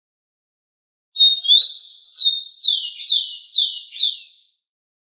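Rufous-collared sparrow singing one song phrase, starting about a second in: a short steady whistle and a rising note, then five falling slurred whistles at about two a second.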